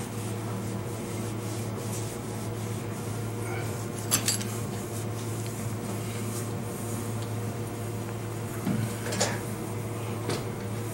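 Cloth rubbing over the metal housing of a compressor's oil bath air filter, with a few sharp clinks and knocks against the metal, one about four seconds in and a couple more around nine seconds in, over a steady low hum.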